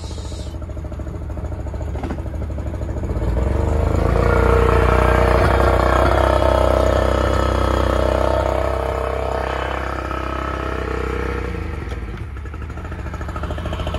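40 hp Yamaha two-stroke outboard running in reverse on a flushing hose: a few seconds in the revs rise, hold for several seconds, then drop back to idle near the end.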